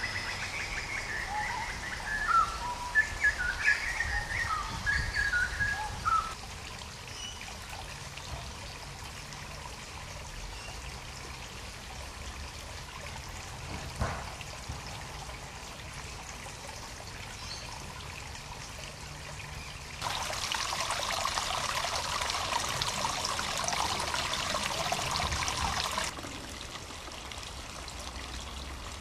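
Water trickling and splashing steadily from a garden pond waterfall, with small birds chirping over it in the first few seconds. About twenty seconds in, a louder, brighter splashing of falling water sets in for about six seconds and stops suddenly.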